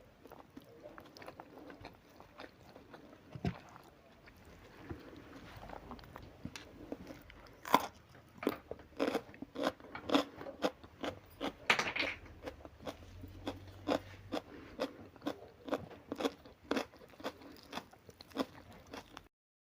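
A person biting and chewing crunchy food close to the microphone. At first there are soft mouth sounds, then from about eight seconds in comes a run of sharp crunches at roughly two a second, and the sound cuts off just before the end.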